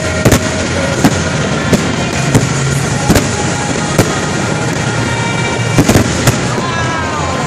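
Aerial firework shells bursting in a finale barrage: sharp bangs every second or so, bunched together about six seconds in, over continuous crackling. A falling whistle sounds near the end.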